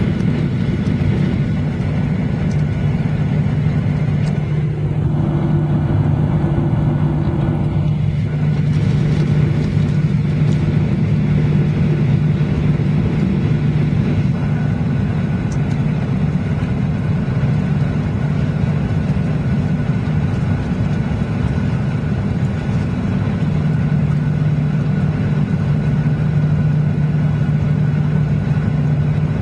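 Inside the cabin of a Boeing 737-800 taxiing, its CFM56-7B jet engines running at low power: a steady low hum over an even hiss.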